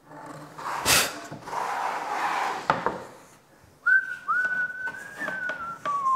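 A knock about a second in, then a scraping slide for a couple of seconds as the plunge saw is handled on its guide rail. From about four seconds a man whistles a single held note that drops lower and wavers near the end.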